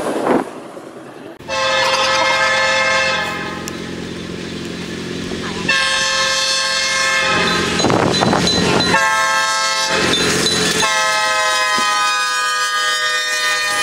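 Locomotive air horn sounding several long chord blasts with short gaps between them, over the rumble of a passing train. About eight seconds in, a loud burst of broad noise breaks in between blasts.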